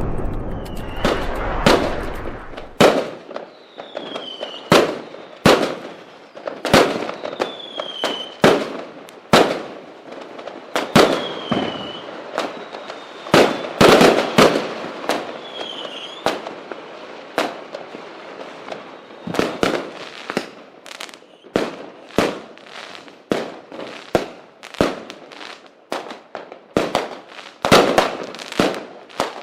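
Fireworks going off: a rapid, irregular series of sharp bangs and pops, with about four whistling rockets whose pitch falls in the first half, and the bangs coming faster near the end.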